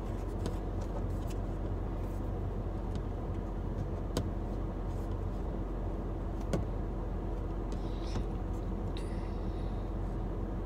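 Steady low hum with a faint steady tone above it, broken twice by faint sharp clicks.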